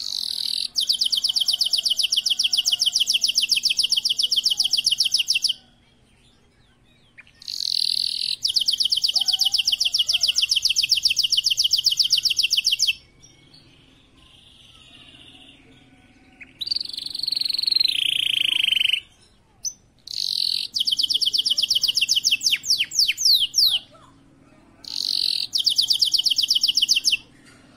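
Domestic canary in breeding condition singing: five loud bouts of very rapid, high trills, each lasting a few seconds, with short pauses between them. A falling run of notes closes the middle bout.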